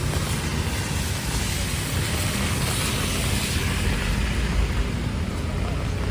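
Typhoon wind buffeting the microphone with a steady low rumble, over the hiss of heavy rain. The hiss swells for about two seconds in the middle.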